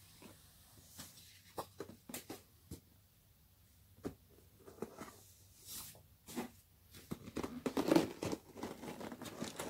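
Paper warranty card and leaflet rustling and being set down on a cardboard box with short taps and scrapes. About seven seconds in, the cardboard box is picked up and handled, with a denser run of scraping and crinkling.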